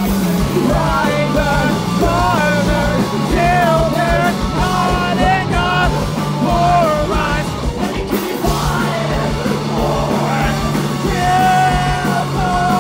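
A live rock band playing loud: electric guitars, bass guitar and drums, with held low notes under a wavering high melody.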